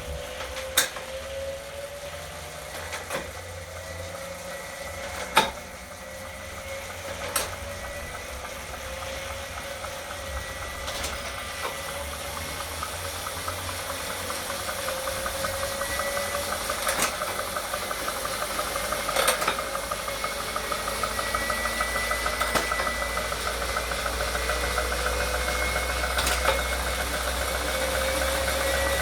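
Wahoo Kickr Core smart bike trainer running with a steady whine and a sharp knock every two to four seconds. The whine grows gradually louder toward the end.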